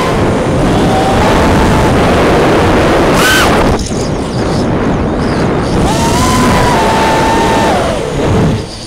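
A 5-inch FPV racing quadcopter's brushless motors (T-Motor F40 III 2306 2750KV) whining over heavy propeller and wind noise on the onboard camera's microphone, the pitch sliding up and down with the throttle as it manoeuvres. The sound drops back twice, briefly around four seconds in and again near the end, where the whine then climbs as the throttle comes back in.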